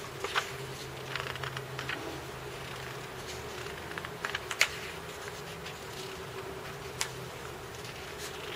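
Paper pages of a bound sketchbook being handled and turned: scattered soft rustles and crisp crackles, the sharpest about four and a half seconds in, over a steady low hum.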